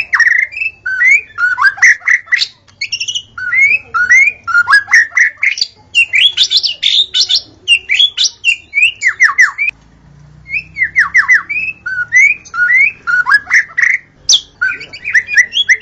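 White-rumped shama singing a rapid, varied song of whistled and slurred notes, with runs of quick falling slurs and a short pause about ten seconds in.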